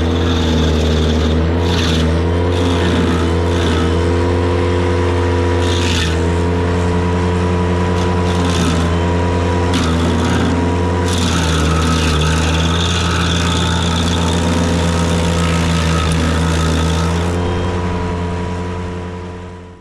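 Ventrac compact tractor engine running hard to drive the KC220 stump grinder, its pitch sagging briefly several times as the cutter wheel takes load. The sound fades out near the end.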